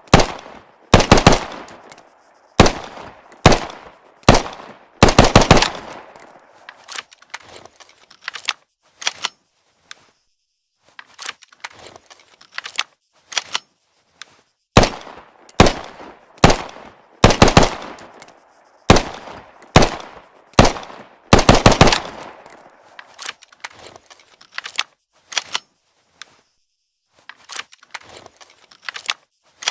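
Automatic pistol gunshots: single shots and quick bursts of several rounds, irregularly spaced, each with a short echoing tail.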